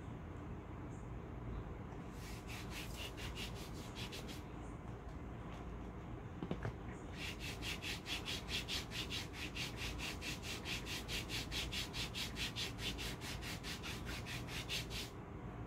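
A hand rubbing quickly back and forth over a cold wax strip laid on the lower leg, pressing it onto the skin before it is pulled, at about six strokes a second. A short spell of rubbing comes about two seconds in and a longer one runs from about seven seconds to near the end, with a single light click between them.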